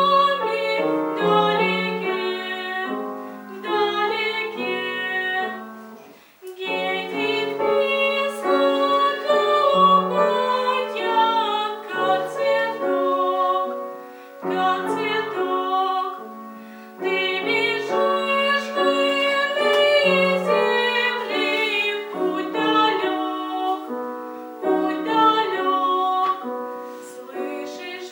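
A female voice singing a slow Polish folk song in classical style, with piano accompaniment, pausing briefly between phrases about six seconds in.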